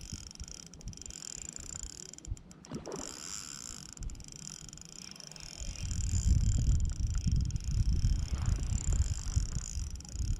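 Ultralight spinning reel being cranked steadily to retrieve a spoon, with a low rumble setting in about halfway through.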